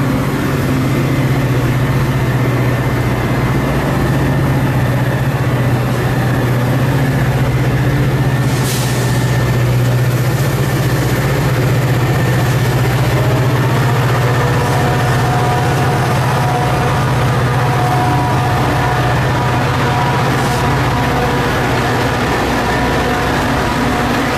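Diesel locomotive of a Metra commuter train running at the station with a deep, steady hum that eases off near the end. A brief hiss comes about nine seconds in, and faint steady higher tones join from about fourteen seconds in.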